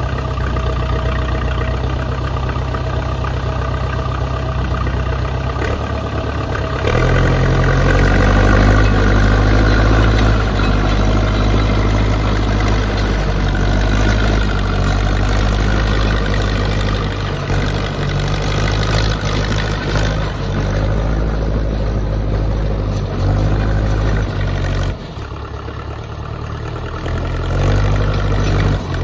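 Case D450 bulldozer's four-cylinder diesel engine running, getting louder about seven seconds in, dropping off briefly near the end and then coming back up.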